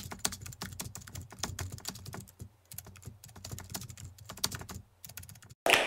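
Keyboard typing sound effect: a rapid, uneven run of key clicks as text is typed out, stopping shortly before the end.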